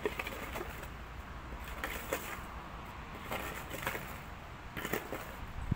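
Hand digging in stony soil: a digging tool strikes and scrapes against stones in short, irregular hits, several over a few seconds.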